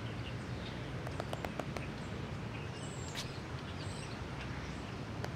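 Outdoor city park ambience: a steady low hum of street traffic with a few faint bird chirps, and a quick run of light clicks about a second in.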